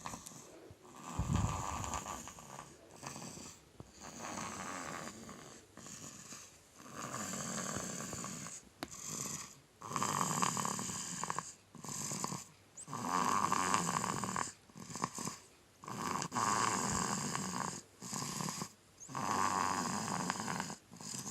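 A sleeping baby snoring noisily, breath after breath, each snore about a second long with a short pause between.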